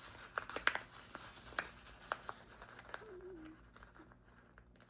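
Light ticks and rustles of a paper sticker sheet being handled as a small sticker is picked at and peeled off, stuck and slow to come up. A brief faint hum about three seconds in.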